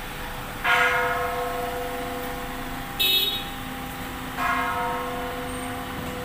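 A large bell struck twice, about four seconds apart, each stroke ringing out slowly over a steady hum left from earlier strokes. A short, brighter metallic clang comes about three seconds in.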